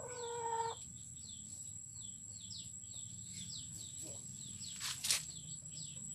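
Chickens calling: a held, pitched call of under a second to open, then many short falling chirps through the rest, over a steady high-pitched tone. A single sharp click about five seconds in.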